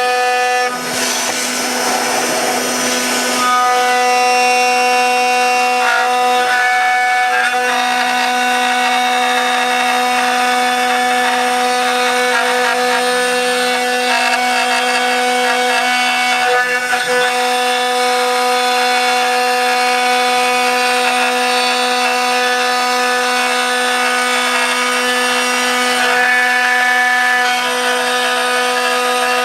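CNC router spindle running steadily with a high whine while its cutter machines a dense Karri hardwood neck blank, with a rougher, louder rasp from about one to three and a half seconds in.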